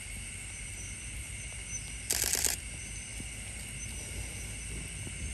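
Steady high-pitched chorus of night insects, with one loud rasping burst of about half a second about two seconds in.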